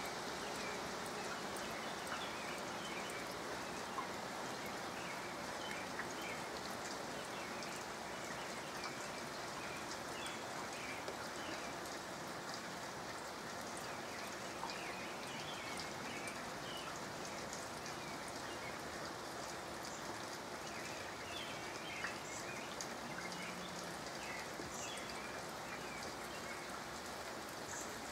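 Soft, light rain falling steadily: an even hiss with scattered drop ticks. Faint bird chirps come and go through it.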